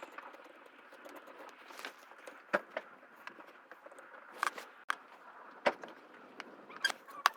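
Hand tools working on the expansion valve bolts: light, irregular metal clicks and taps, about a dozen scattered through, over a faint steady hiss.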